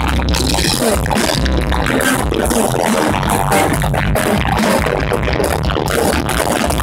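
Live electronic music with drums, keyboards and heavy bass played loud through a concert PA. The recording, made right in front of a speaker, is distorted.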